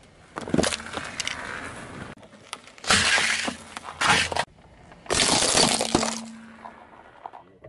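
Car tyre rolling over and crushing small objects on asphalt: crunches and cracks in four separate bursts, each starting and stopping abruptly.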